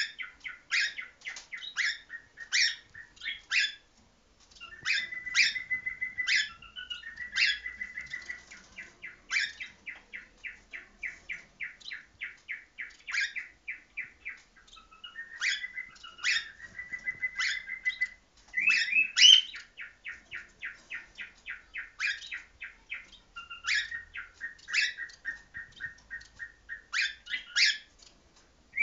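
Cockatiels calling: long runs of short, sharp chirps, about five a second, broken now and then by brief held whistled notes.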